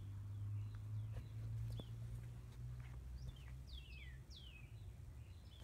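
Birds calling outdoors: a few quick down-slurred whistles, mostly about three to four seconds in, over a steady low hum that fades toward the end.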